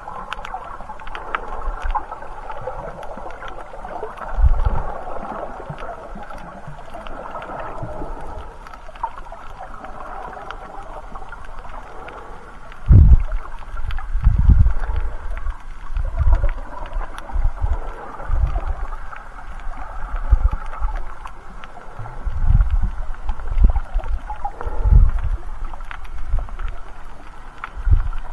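Underwater sound picked up by a snorkeller's camera: a muffled, steady rushing hiss with faint scattered clicks, and irregular dull low thumps of water moved by the swimmer, the loudest about halfway through.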